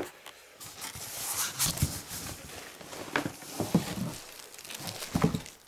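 Cardboard box and styrofoam packing rustling, with a few scattered knocks, as a heavy transformer is handled out of its box.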